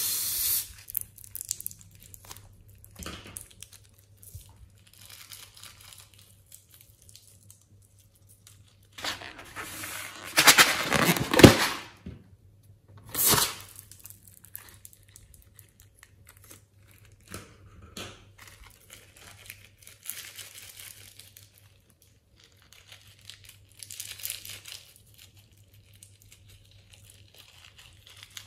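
Scissors snipping a rubber balloon, then the balloon's rubber being torn and peeled off its filling; the loudest tearing comes about ten seconds in, followed by softer crinkling and rustling.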